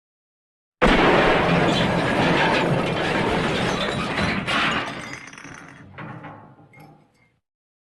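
A crash sound effect of glass and other objects smashing: a sudden loud smash about a second in that holds for a few seconds, then thins out into scattered tinkling and clinking pieces before it stops.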